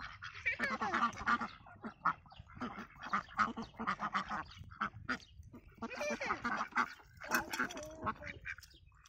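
Domestic ducks quacking again and again in short bursts, mixed with quick clicks of a bill pecking at watermelon rind.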